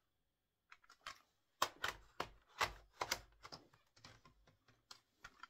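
CD cases being handled and shuffled: a quick, irregular run of small plastic clicks and knocks, with no speech.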